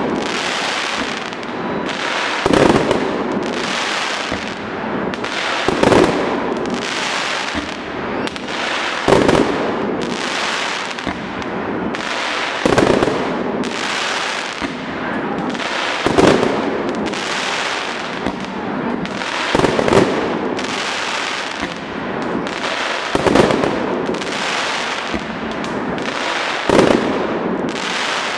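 Fireworks salute: a loud bang about every three and a half seconds, with continuous crackling and popping between the bangs.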